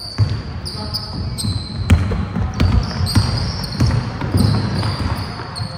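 Basketball game play: balls bouncing on the court in repeated thumps, with short high squeaks and a sharp bang about two seconds in.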